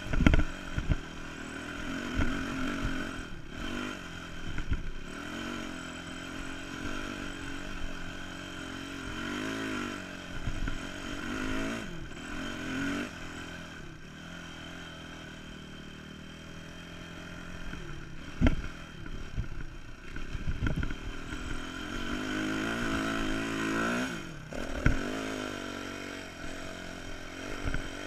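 Dirt bike engine running under load over sand, its pitch rising and falling again and again as the throttle is opened and closed. A few sharp knocks cut through, the loudest about eighteen seconds in.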